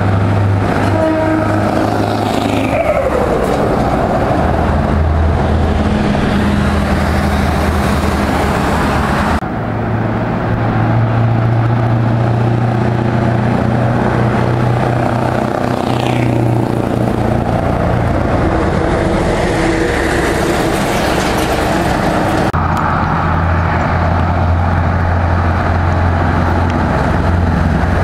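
Straight-piped Scania V8 truck engines running loud and open as the trucks drive along the road, the exhaust note holding and shifting in pitch. The sound changes abruptly about a third of the way in and again near the end, where one truck's recording gives way to another's.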